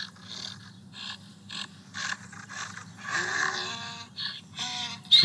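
Recorded donkey bray played through a phone speaker: a rhythmic run of wheezing in-breaths and honking out-breaths.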